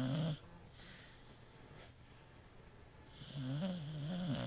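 Beagle snoring in its sleep: one snore trailing off just after the start and another, about a second long, near the end, each a low wavering drone with a quiet breath between.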